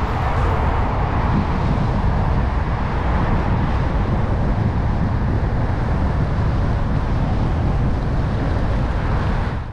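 Steady wind rush on a GoPro action camera's microphone while riding a road bike, heaviest in the low end and fading out at the very end.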